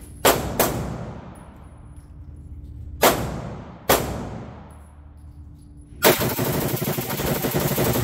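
Gunfire from a range gun: four single shots, the first two close together, each ringing out with a long echoing tail, then about six seconds in a fast, unbroken string of rapid fire.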